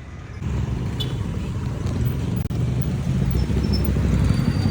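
Motorcycle engine of a sidecar tricycle running with a low, fast-pulsing rumble that starts about half a second in and grows louder.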